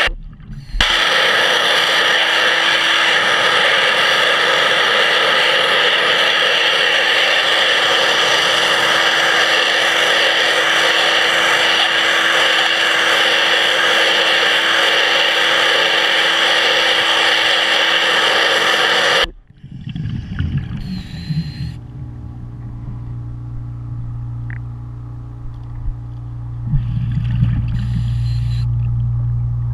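Pressure-washer wand spraying underwater: a loud, steady hiss with a steady tone through it. It drops out briefly at the very start and cuts off suddenly about two-thirds of the way through. After that comes a quieter low steady hum with a couple of short bursts of noise.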